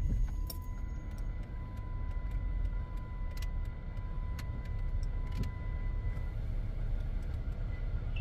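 Chrysler 300's engine just fired and idling steadily, with a few light clicks. A steady high electronic tone sounds over it until about six seconds in.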